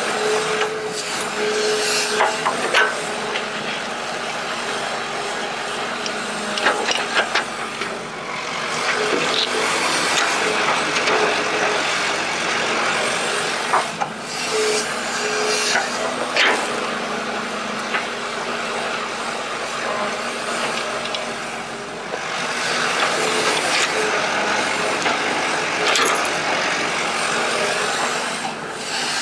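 Excavator at work: its engine runs steadily with a tone that comes and goes, over scattered clanks and knocks from the digging.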